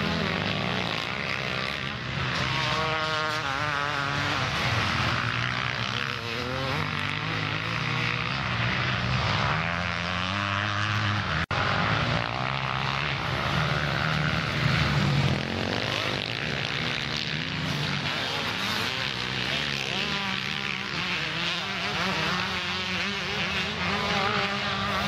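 Several motocross bike engines revving hard around the track, their pitch rising and falling as they accelerate and back off, overlapping as bikes near and fade. A brief break in the sound comes about halfway through.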